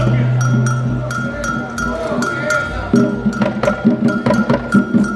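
Afro-Brazilian Candomblé percussion: a metal bell struck in a steady, repeating pattern, with hand drums coming in more densely about three seconds in.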